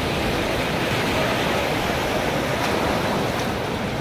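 Sea surf washing in over a shallow sandy beach: a steady rushing noise of breaking waves.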